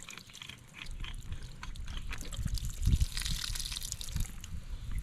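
Water dripping and trickling from a garden hose connection, with small handling clicks and a low thump about three seconds in.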